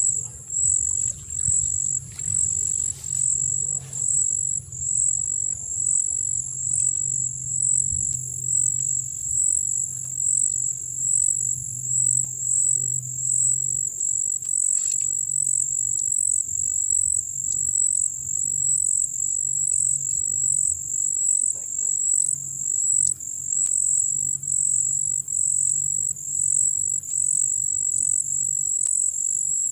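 Insects trilling at a high pitch in a steady chorus that swells and fades in an even pulse, a little slower than once a second. A faint low hum runs under it for about the first half.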